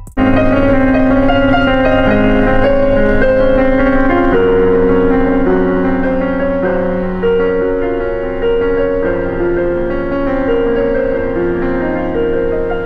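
Background music on keys: held chords under a slow melody, with a quick rising run of notes near the end.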